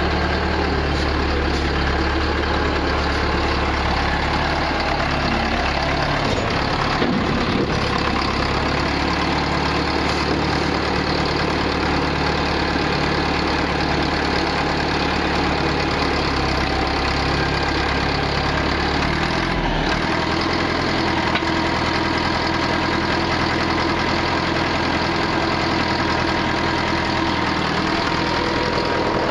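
Case 780 backhoe's diesel engine running steadily, its note changing about six seconds in and again around twenty seconds in.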